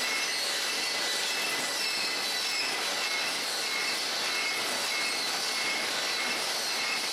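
Automatic wooden crate production line running: a steady clatter of chain conveyors and machinery, with short high-pitched squeaks recurring about twice a second.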